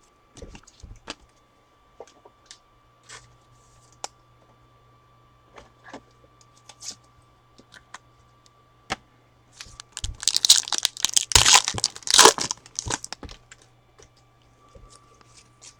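Foil trading card pack being torn open and crinkled, a loud crackling stretch of about three seconds that starts some ten seconds in. Before it come scattered light clicks and taps of cards being handled.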